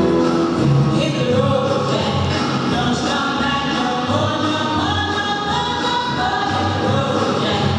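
Music with singing, voices sounding like a choir, holding and changing sustained notes.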